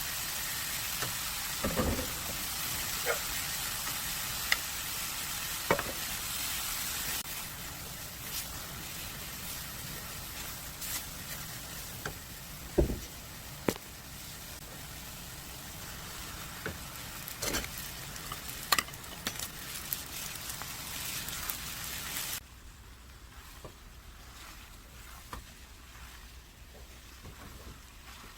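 Food sizzling in a frying pan, with scattered sharp clicks and taps of a utensil against the pan. About three-quarters of the way through the sizzle drops away suddenly, leaving only a few quieter taps.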